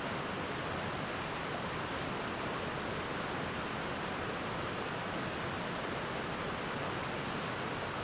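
Water rushing steadily over creek rapids and a waterfall, an even, unbroken rush with no change in level.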